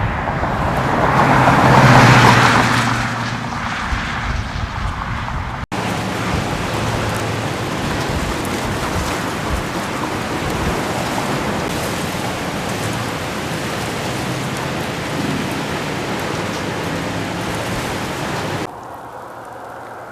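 A car passes, its sound swelling and fading. Then, after an abrupt cut, a long stretch of steady, dense rain and hail pelting down, ending in another abrupt cut to quieter storm noise near the end.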